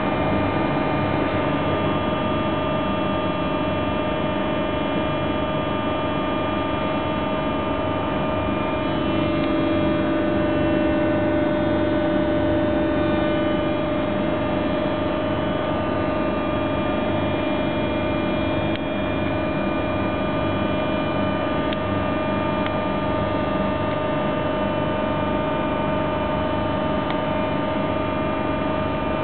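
Steady hum of a standing train's onboard equipment heard from inside the carriage: several steady whining tones over a low rumble, swelling slightly about ten seconds in.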